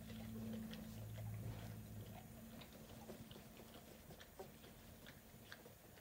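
Goldendoodle mother licking and nosing her two-week-old puppies: faint wet licking and smacking, many small clicks scattered throughout. A low steady hum sounds under the first two seconds.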